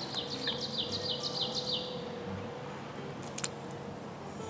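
A songbird singing a quick series of short descending notes, about five a second, which stops about two seconds in. A few light clicks follow about three seconds in.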